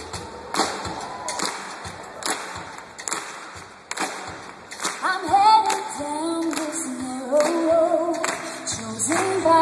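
Live pop band playing a song's opening, with drum hits keeping a steady beat about once a second. A woman starts singing about halfway through with long held notes, and a bass line comes in near the end.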